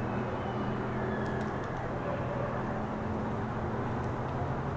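Town ambience dominated by a steady low hum of road traffic and engines under a broad even noise, with a few faint high, short chirps about a second in.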